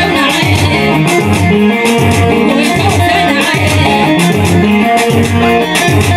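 Loud Tigrinya wedding dance music: a melody over a steady, heavy beat.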